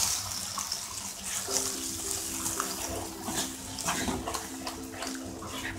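Wooden spatula stirring whisked curd into fried onions in a kadai off the heat: wet squelching with scattered scrapes and taps against the pan. Soft background music with held notes comes in about a second and a half in.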